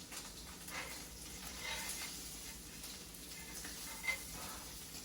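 Homemade chicken nuggets frying in butter in a hot pan, a light steady sizzle with scattered crackles, and one sharp click about four seconds in.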